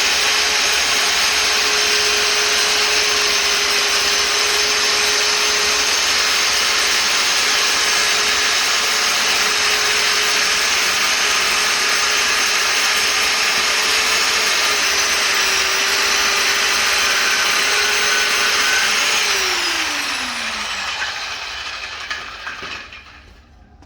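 Electric power tool's motor running steadily with a constant whine, then switched off about nineteen seconds in and spinning down, its pitch falling until it goes quiet.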